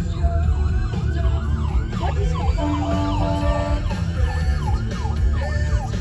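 Fire squad truck's siren on a fast yelp, sweeping up and down about three times a second as it responds code 3 with lights and siren. Partway through, a horn sounds steadily for about a second and a half over the siren.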